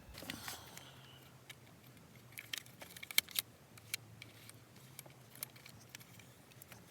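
Irregular light clicks and rattles of a steering-wheel clock spring being handled and turned on the steering column, with a few sharper ticks about halfway through.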